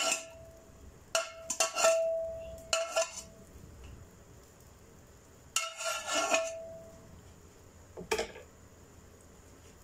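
Metal spoon scraping and clanking against an aluminium cooking pot, in bursts at the start, around two and three seconds in, near six seconds and once more near eight seconds; several clanks leave a ringing note hanging.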